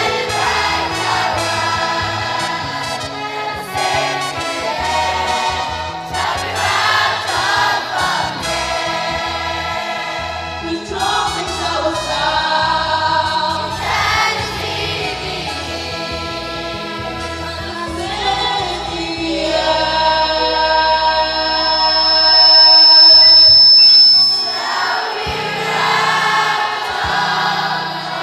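Children's choir singing a gospel song in several parts over instrumental accompaniment with a moving bass line. Near the end the voices hold one long, loud note, then ease off.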